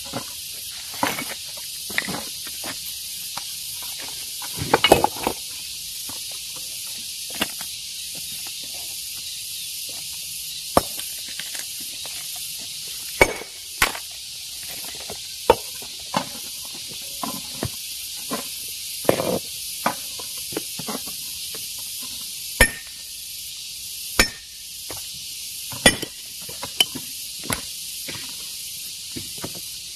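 Hand hammer striking stone in irregular, sharp knocks, roughly one every one to three seconds, as rock is broken up by hand. Under the strikes runs a steady high hiss.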